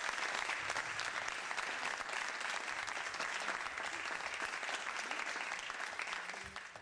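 An audience applauding steadily, the clapping dying away near the end.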